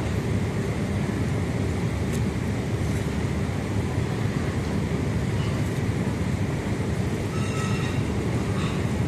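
Steady low rumble of city background noise, with a short high-pitched sound about seven and a half seconds in.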